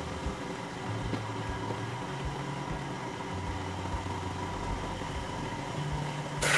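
Background music muffled down to its low end: a steady kick-drum beat under a bass line that changes note about once a second, with the rest of the music cut out.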